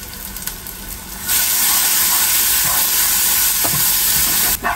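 Blended chili, shallot and garlic spice paste sizzling in hot oil in a frying pan as it is stirred with a spatula. The sizzle turns to a loud, even hiss about a second in and cuts off shortly before the end.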